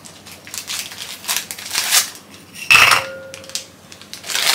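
Plastic biscuit wrappers crinkling as they are opened and handled. About three seconds in there is one loud clink on a glass mixing bowl, which rings on briefly.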